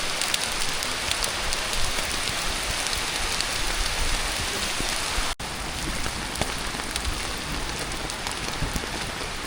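Steady rain falling, with many individual drops ticking.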